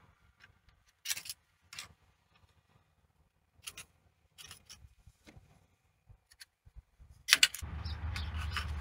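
A sharpened putty knife scraping a stuck old gasket off an engine's thermostat housing in short, sharp, scattered strokes. Near the end come a few louder strokes, then a steady low rumble with hiss over it.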